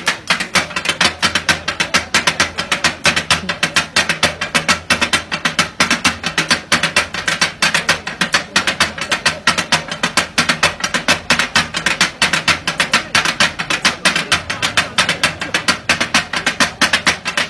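Kata-kat: steel blades rapidly striking and chopping meat on a large flat iron griddle, a fast, steady metallic clatter of about five or six strikes a second.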